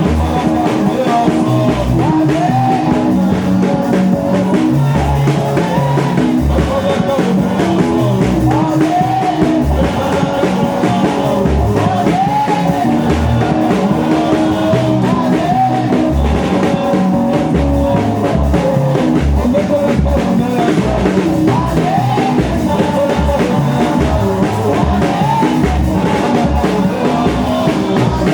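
Gospel praise music: a band with a steady bass-and-drum beat under a singing melody, playing loud and continuous.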